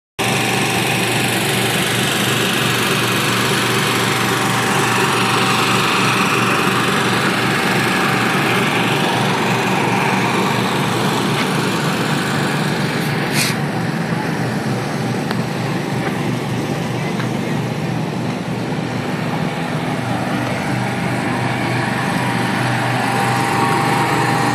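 Food truck generators running with a steady drone, and a brief click about halfway through.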